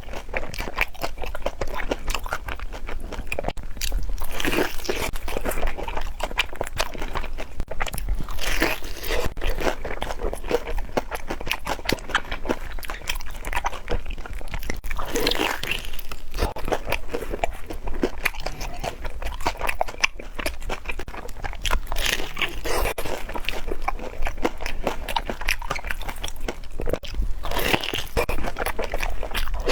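Biting into and chewing fried glutinous-rice-coated banana, a crisp crunching with dense crackles and a louder crunch every several seconds.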